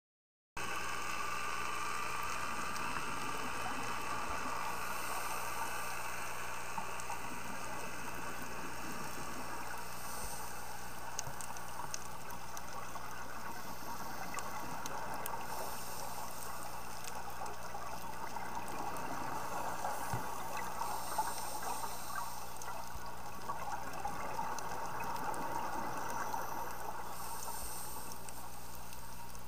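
Underwater sound picked up through a scuba diver's camera housing: a steady muffled water noise that cuts in about half a second in. Bubbling from the diver's exhalations recurs roughly every five to six seconds.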